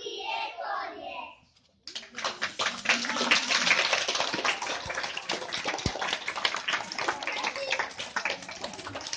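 Children's voices briefly, then after a short pause about two seconds in, a group of young children clapping their hands in quick, uneven applause.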